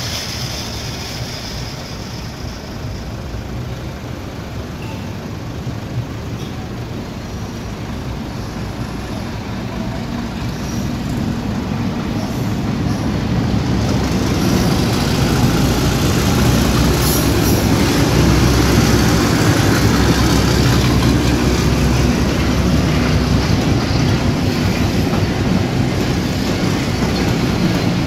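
Pakistan Railways Hitachi diesel locomotive approaching and passing, its rumble growing louder about halfway through and then holding, followed by the passenger coaches running by on the rails.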